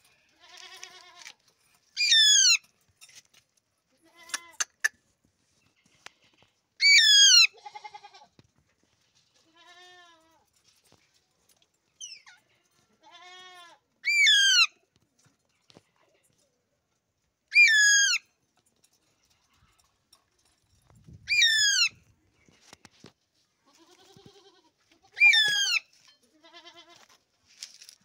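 Alexandrine parakeets giving loud, harsh screeches, six times, each about half a second long, with softer, lower wavering calls in between.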